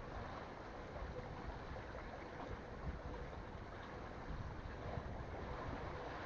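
Wind buffeting the microphone over steady sea and water noise, with a faint steady hum underneath.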